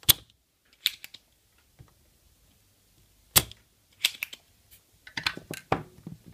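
Spring-loaded desoldering pump (solder sucker) firing with a sharp snap right at the start and again about three seconds later, sucking molten solder off a circuit-board joint. Lighter clicks and knocks of the tools being handled on the workbench come in between, bunched near the end.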